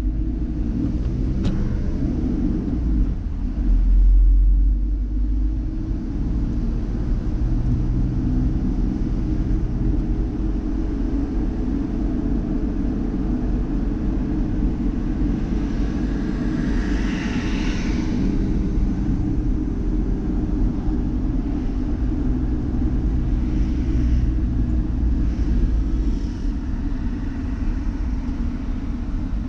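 Car driving on a city street, heard from inside the cabin: a steady low engine and road rumble, with a louder rushing noise for about two seconds a little past the middle.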